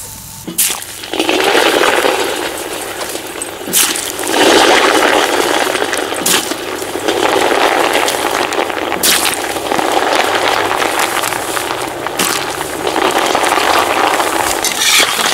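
Young potatoes tipped into hot lamb fat in a cast-iron kazan, the fat deep-frying with a loud, steady sizzle that starts about a second in and swells about four seconds in. Sharp cracks come every few seconds.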